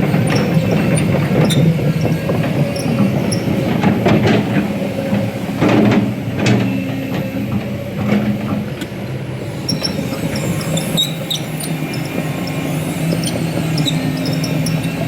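Heavy earthmoving machine at work: its diesel engine runs steadily, with high metallic squeaks and a few sharp clanks between about four and seven seconds in.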